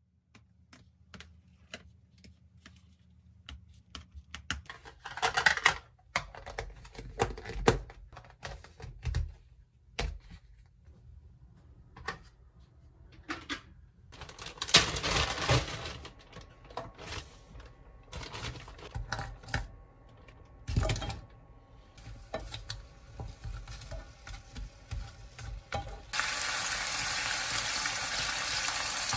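Kitchen handling sounds: plastic containers and utensils clicking and knocking, with a short spell of running tap water in a sink about halfway through. Near the end, frozen pork slices start sizzling steadily in a frying pan, giving off water and fat.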